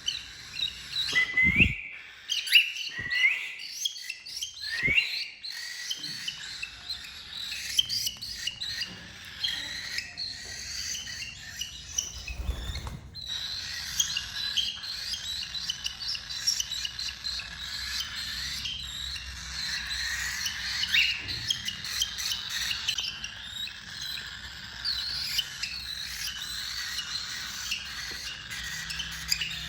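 Cockatiels chirping and chattering, several birds calling over one another in short whistled chirps. The chatter grows denser and more continuous about halfway through. A few dull low thumps come in the first five seconds.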